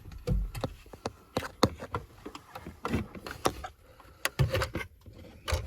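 Irregular handling noises: sharp clicks, knocks and rubbing as the opened dashboard panel around the van's OBD diagnostic connector is handled, with a few low thumps.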